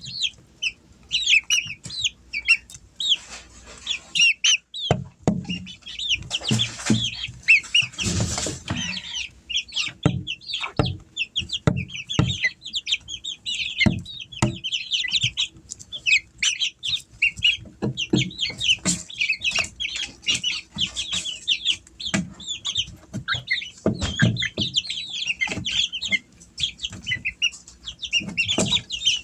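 Young chickens in a brooder box cheeping and clucking nonstop in quick high chirps, with frequent knocks and thumps as they scramble and flap about inside the box.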